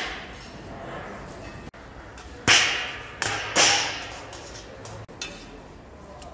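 Flat steel lids being lifted off a giant cauldron of steaming plov rice and set down: several sharp metal clanks, each with a short bright decay.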